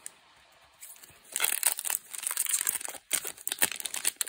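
Foil wrapper of a Magic: The Gathering booster pack crinkling and tearing as it is pulled open by hand. It starts about a second in, with a short break near the three-second mark.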